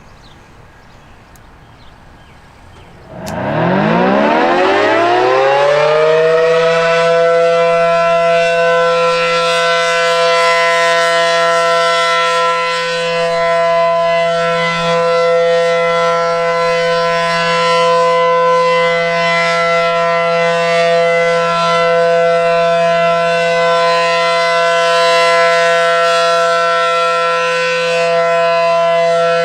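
ACA Allertor 125 outdoor warning siren starting up about three seconds in: its pitch climbs steeply as it winds up, then it holds a loud, steady tone, the alert signal, with its level dipping gently now and then.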